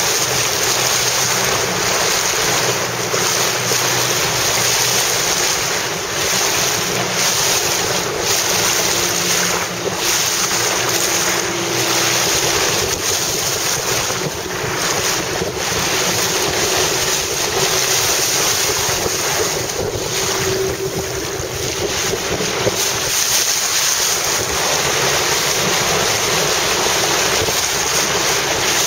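Strong wind buffeting the microphone over the steady rush and splash of choppy sea waves, with a faint steady hum through the middle.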